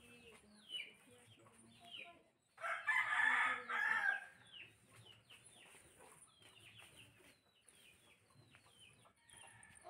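A rooster crows once, loud and close, about two and a half seconds in, lasting over a second. Short, falling bird calls chirp steadily around it.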